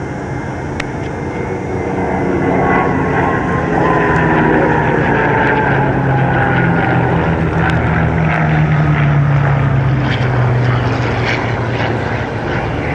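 Piston-engined fighter aircraft flying past with a propeller drone that swells a couple of seconds in and falls in pitch as they pass.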